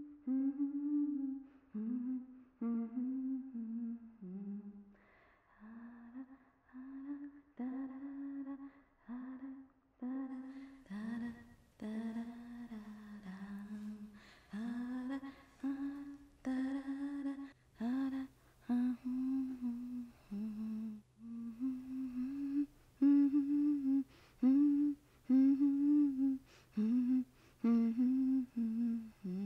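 A woman humming a slow, wordless tune in short phrases of about a second each.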